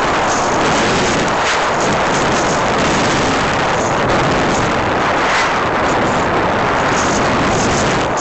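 Steady, loud engine and wind noise of a light aircraft in flight, heard from the cabin.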